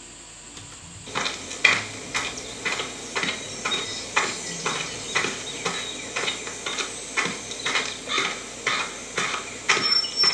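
Foley sound effect of sneakers walking on dirt: steady crunchy footsteps, about two a second, starting about a second in.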